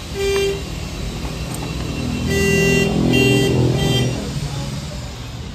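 Vehicle horns honking in nearby traffic: one short beep just after the start, then a string of beeps from about two to four seconds in, over a low engine rumble that swells in the middle.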